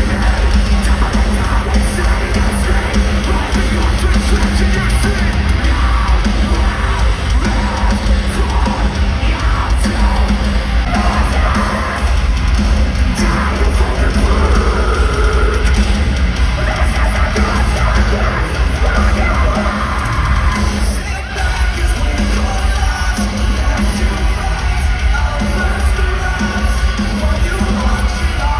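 Live heavy metal band playing at full volume, heard from the audience in an arena: distorted guitars, heavy bass and drums, with yelled, screamed vocals. The sound drops briefly about three-quarters of the way through and picks up again.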